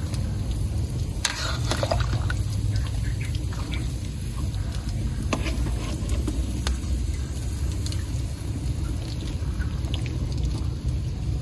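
Pot of duck and bamboo-shoot stew in coconut water simmering, with scattered small pops and bubbling over a steady low rumble.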